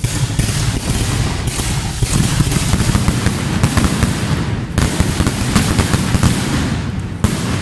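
Aerial fireworks bursting in rapid succession: a dense, continuous crackle of sharp reports, with fresh loud bursts about every one to two seconds.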